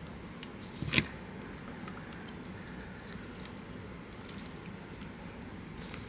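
Plastic Buster Gundam action figures being handled, giving a sharp click about a second in and a few faint light clicks and taps, over a steady low hum.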